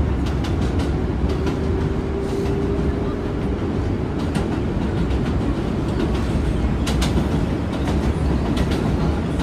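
R143 subway car running on elevated track, heard from inside the car: a steady rumble with many irregular wheel clicks. A faint steady whine sounds for a couple of seconds, starting about a second in.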